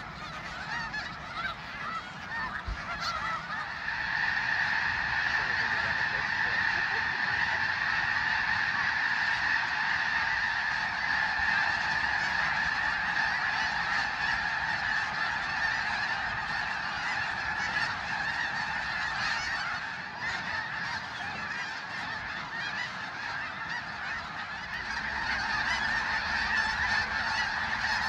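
A large flock of geese calling all at once, a continuous clamor of overlapping honks that swells about four seconds in, dips a little past the middle and rises again near the end.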